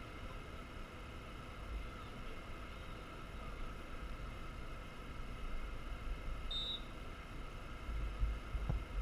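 Open-air ambience with wind rumbling on the microphone, and one short, high referee's whistle blast about two-thirds of the way through, signalling that the penalty may be taken.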